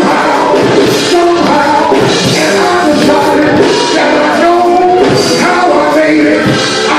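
A man singing into a handheld microphone, amplified through the church's sound system, with musical backing. The held notes bend and run on without a break.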